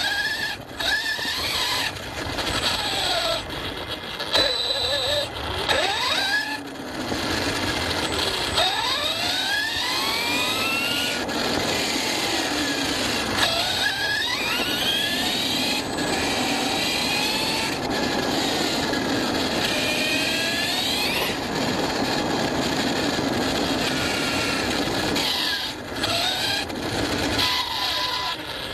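ARRMA Fireteam 6S RC car's brushless electric motor whining, its pitch sweeping up and falling back again and again as the throttle is worked. Underneath is a steady rush of the tyres running over rough off-road ground.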